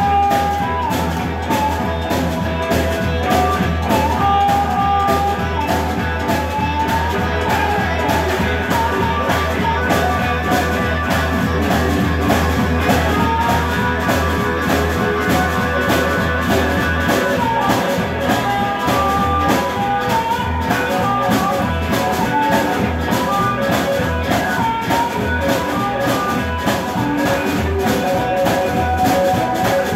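Live blues band playing: electric guitar and harmonica blown into a microphone over upright bass. The bass line changes from a steady low drone to separate notes about halfway through.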